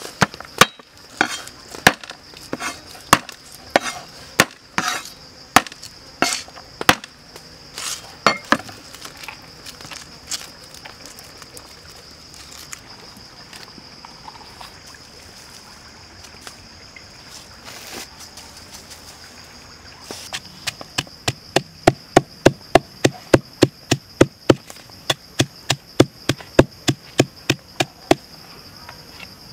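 A pestle pounding garlic and red chillies in a mortar, a steady run of strikes about three a second, starting about two-thirds of the way in. Before that, irregular knocks on a wooden cutting board as garlic cloves are crushed and chopped. Insects shrill steadily throughout.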